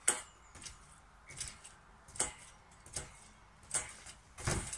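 Garden trampoline's metal springs creaking and clinking with each bounce, about once every three-quarters of a second, with a heavier thump of a landing near the end.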